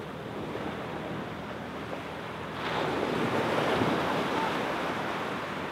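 Gentle surf washing onto a sand beach. A wave breaks and swells louder about halfway through, then eases off near the end.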